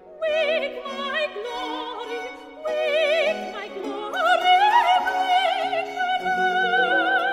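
A solo soprano comes in just after the start, singing with a wide vibrato over a small baroque orchestra.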